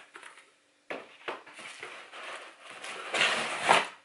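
Cardboard and paper packaging rustling and scraping as parcels and flat cardboard are pulled out of a cardboard shipping box, the rustling loudest near the end.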